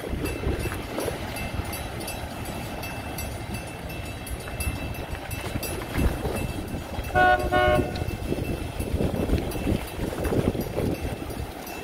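A horn sounds two short toots in quick succession about seven seconds in, over a steady low rumble.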